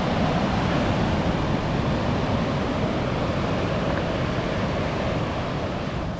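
Steady rush of sea surf on the beach, with a deep wind rumble on the microphone.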